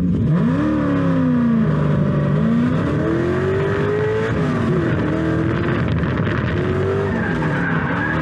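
Drift car engine revving hard, its pitch climbing and dropping repeatedly through a slide, with tyre squeal.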